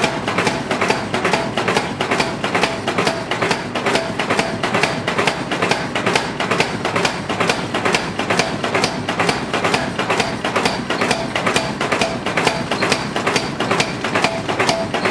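Power hammer striking a red-hot pattern-welded steel billet in a rapid, even run of blows, about five a second, drawing it out into a sword blade.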